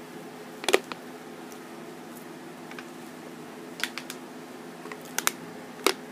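A handful of short, sharp clicks and taps in small clusters, over a steady low hum.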